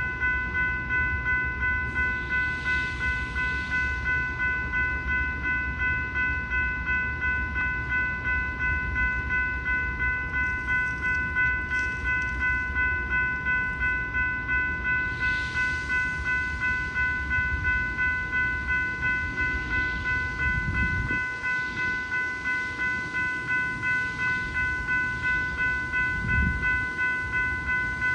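Railroad crossing warning bell ringing steadily at about two strokes a second, over the low rumble of a freight train at the crossing. The rumble drops away about twenty seconds in, leaving the bell.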